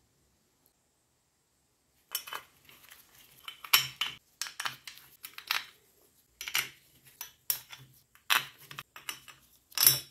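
Metal clinking as steel bolts are handled and set into the finned aluminium cover of a BMW E46 rear differential: about ten irregular clinks and taps, starting about two seconds in.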